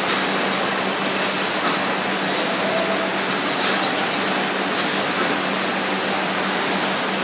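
Bottle-turner conveyor line running: plastic milk jugs sliding and knocking along the slat conveyor and through the star-wheel turner, a steady mechanical clatter over a constant low hum.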